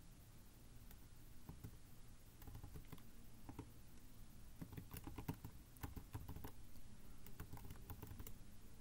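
Faint clicks of computer keyboard keys being tapped in quick, irregular runs, starting about a second in and stopping near the end.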